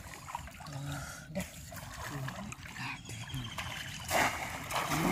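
River water splashing and trickling as people wade and a bamboo polo fish trap is plunged into the shallows, with a louder splash about four seconds in. Faint voices underneath.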